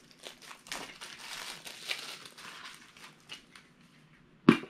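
Plastic shrink wrap crinkling as it is peeled and crumpled off a Funko Soda can, with a single sharp thump near the end.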